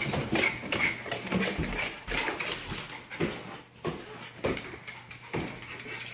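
A dog: a string of short sounds with brief gaps between them.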